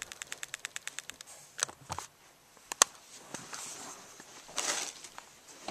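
Hands handling plastic bait packaging: a quick run of even clicks, about ten a second, for the first second, then a few sharp single clicks and two short crinkly rustles.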